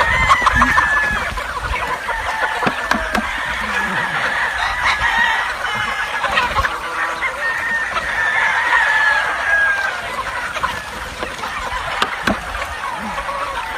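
A large flock of free-range chickens clucking over one another, with roosters crowing among them.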